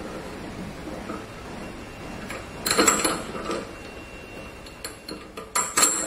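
A small metal screw and its nut clinking and knocking against the metal hanging rod of a rain shower head as the screw is fitted through the rod's holes to fix its length. Two short clusters of clinks, one about three seconds in and a sharper one near the end.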